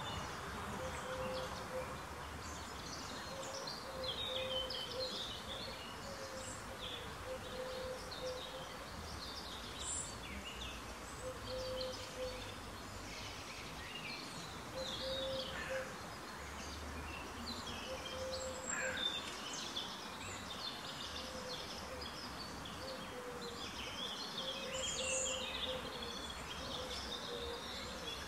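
Several small birds chirping and singing in short phrases, over a low call repeated every two seconds or so and a steady background hiss.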